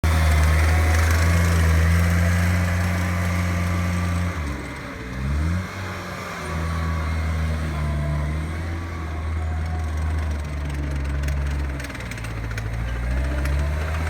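Caterpillar 257B compact track loader's diesel engine running hard and steady. Its pitch dips and climbs back twice, about four seconds in and again near the end, as the machine takes load.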